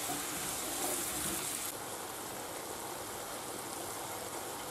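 White wine sizzling and simmering as it reduces in a frying pan of fried pork and vegetables: a steady hiss. It is stirred with a wooden spoon at first, and the hiss drops a little after about a second and a half.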